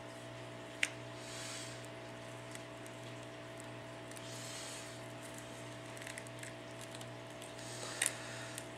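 A pry tool working a smartphone's broken display assembly loose from its frame: soft scraping with a sharp click about a second in and another near the end, over a steady low hum.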